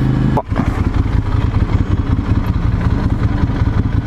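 Ducati Monster 796's air-cooled L-twin engine running at low revs in slow traffic, a lumpy, pulsing rumble, with a short dip in level about half a second in.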